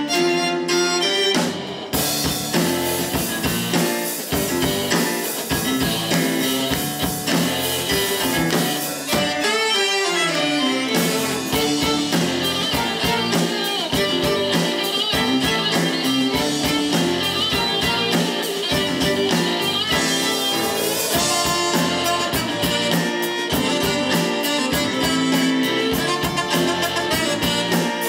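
A live rock-styled string ensemble playing: violins bowing over electric guitar and a drum kit with a steady beat, with a falling glide in the melody about ten seconds in.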